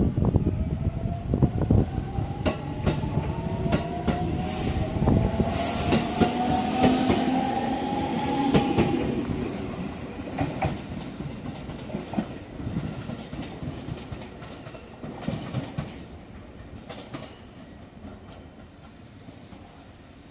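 JR Central 373 series electric train accelerating, heard from inside the car: the Toshiba GTO-VVVF inverter's whine climbs in pitch over the first several seconds, then fades away. The running rumble of the train carries on, with clicks from the wheels over rail joints.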